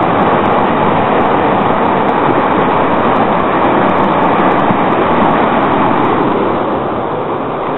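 Fast-flowing floodwater rushing past as a steady, loud, even wash of noise: a small river swollen into a flash flood.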